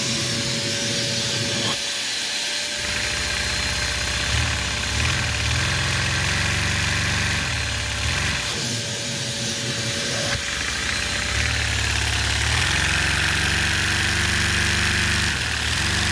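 A Lego vacuum-driven two-cylinder piston engine chugging under the steady whine and hiss of the shop vacuum that powers it. The engine's pulsing speeds up and slows down as it is throttled, and dies down briefly about two seconds in and again around nine seconds.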